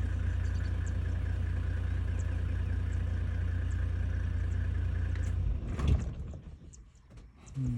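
Vehicle engine idling with a steady low rumble, cutting off about five and a half seconds in, followed by a short thump.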